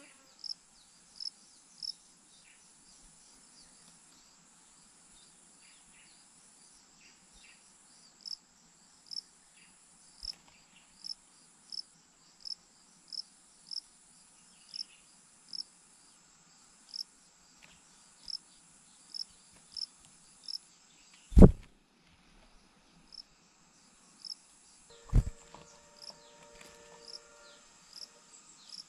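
Insect chirping at a steady pace, short high chirps under a continuous high hiss, typical of a cricket. Two loud knocks break in, one about two-thirds of the way through and another a few seconds later.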